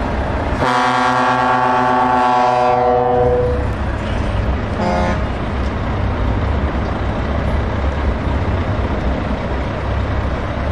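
Truck air horn sounding one long blast of about three seconds, then a short toot about five seconds in, over the steady low rumble of heavy truck diesel engines moving off in a convoy.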